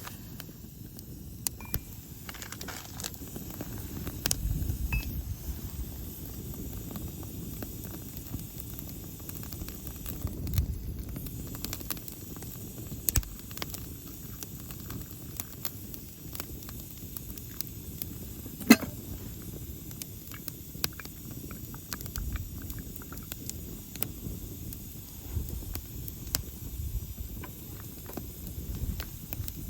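Wood campfire crackling, with irregular sharp pops over a low rumble and faint hiss; one louder pop a little past the middle.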